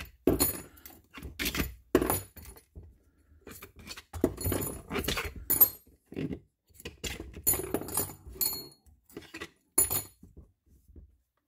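Metallic clinks, rattles and knocks as long steel through-bolts are slid out of an air diaphragm pump's plastic housing and set down among loose nuts and washers. Many strikes ring briefly. They come irregularly and die away near the end.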